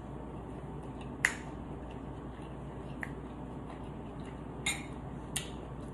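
A fork clicking against a plate four times while eating, sharp short clicks spaced a second or more apart, the loudest about a second in.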